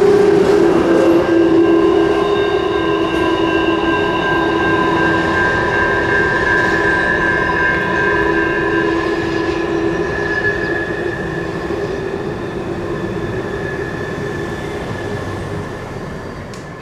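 Freight train tank cars rolling past with their wheels squealing in steady high tones over the rumble of the train. The sound slowly dies away as the end of the train moves off, and fades out near the end.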